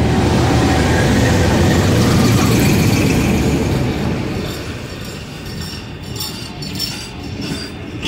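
A Pakistan Railways GU20 (GE U20C) diesel-electric locomotive pulling a passenger train slowly past on arrival, its engine rumble loud as it goes by close. After about four seconds the rumble eases as the coaches roll past, with light clicks and clinks from the running gear.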